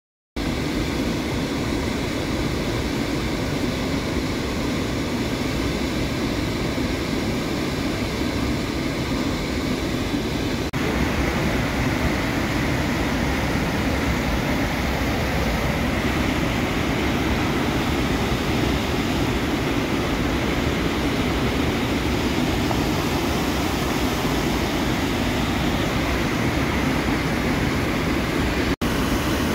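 Brule River waterfall: white water roaring steadily, heard close and loud. The roar steps slightly louder about eleven seconds in and drops out for an instant near the end.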